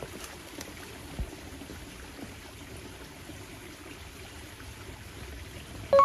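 Steady rush of flowing water, with one soft knock about a second in.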